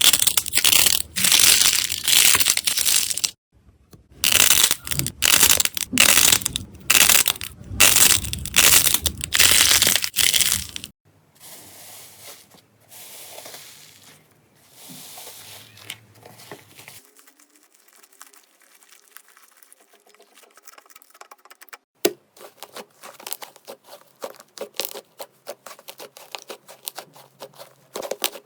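Slime being squeezed and pressed by hand: loud, dense crackling and popping for the first eleven seconds or so, broken by a brief gap. After that comes a much quieter stretch of soft squishing, then fine, rapid crackles near the end.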